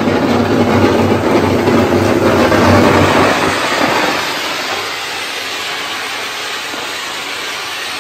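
Handheld cold-fire sparkler gun firing: its electrically ignited cold spark cartridge gives a loud, steady rushing hiss, strongest for the first four seconds or so and then settling a little lower.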